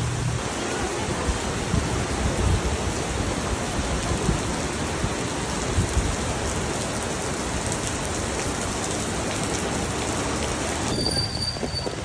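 Heavy typhoon rain pouring steadily, with gusting wind buffeting the microphone in low rumbles. About eleven seconds in the hiss of the rain thins out abruptly.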